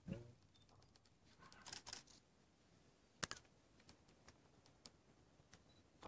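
Near silence broken by scattered faint clicks and ticks, with one sharp click about three seconds in and a brief voice sound at the very start.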